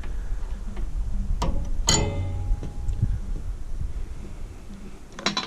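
Hand-work noises on a small engine while the old fuel line comes off: a sharp click, then a metallic clink with a brief ring about two seconds in, and another clatter near the end, over a low rumble.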